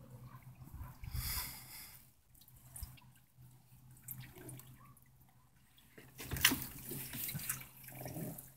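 Faint water lapping and dripping at the side of a small boat, with a few louder spells about a second in and again from about six seconds in.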